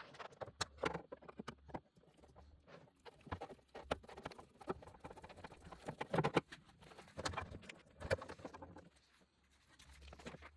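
Faint, irregular clicks and light taps of small plastic and metal parts being handled while a Sport Trac's door latch and its door-open sensor switch are worked on.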